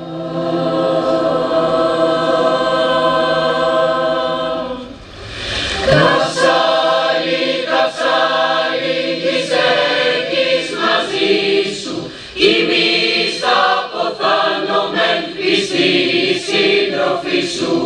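A choir singing: a long held chord for about five seconds, then, after a brief dip, a run of sung phrases.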